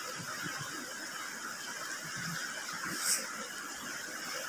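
Steady rushing of a shallow river running over rocks, with a short sharp hiss about three seconds in.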